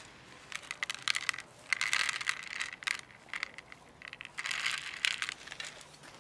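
Dry cat kibble pouring from a plastic container onto a plastic lid: a rattling patter of many small pellets, in a run from about a second in and another near the end.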